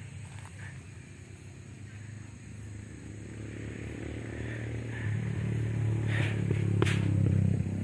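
An engine running steadily with a low hum, growing louder over the last few seconds, with one sharp click shortly before the end.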